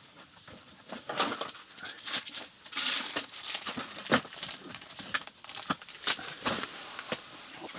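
Scattered rustles, scrapes and sharp clicks of handling noise, with a longer hissing scrape about three seconds in.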